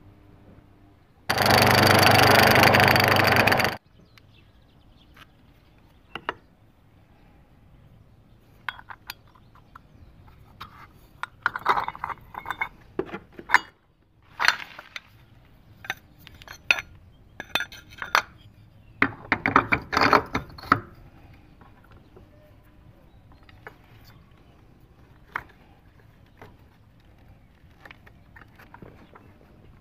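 A loud steady hiss lasting about two and a half seconds near the start. Then comes a scattered run of light metal clicks and clinks as the scooter's variator parts and drive belt are handled and fitted, in two busier clusters.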